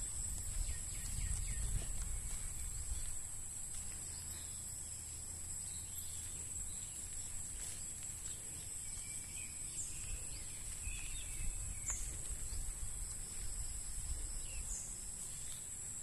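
Outdoor ambience of a steady high-pitched insect drone, with a few short bird chirps in the middle and a low rumble underneath.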